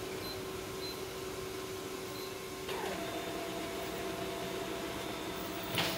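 Canon imageRUNNER ADVANCE 400i copier running with a steady hum; a little under three seconds in its sound steps up as it starts printing copies, with a short knock near the end.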